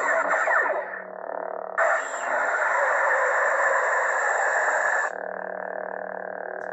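Lightsaber hilt's speaker playing a Count Dooku sound font: a steady electric hum with swing swooshes in the first second, then a louder, harsher sustained effect from about two to five seconds in, before the hum settles back.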